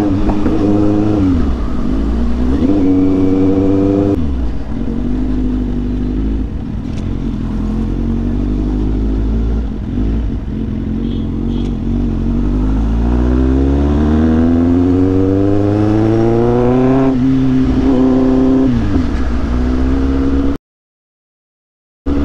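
Kawasaki Z800's inline-four engine with an aftermarket exhaust, heard from the rider's seat while the bike is ridden. The revs rise and fall with the throttle and gear changes, with one long climb through a gear in the middle. The sound cuts out completely for over a second near the end.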